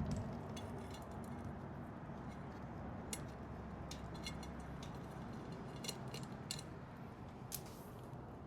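Scattered light metallic clicks and clinks of a motorcycle roller drive chain being handled and fed around the sprocket, over a low steady background.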